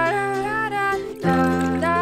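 Background music: a gliding melody line over held low notes, the low note changing about halfway through.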